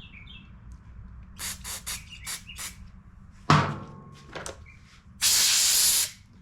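Small parts and tools clicking, then a sharp metal clink, then a hiss of spray or compressed air lasting about a second, the loudest sound here, while a freshly cleared carburetor jet is being cleaned out.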